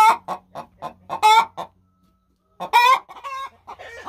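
Hens clucking: a run of short clucks broken by three louder, drawn-out squawks about a second and a half apart.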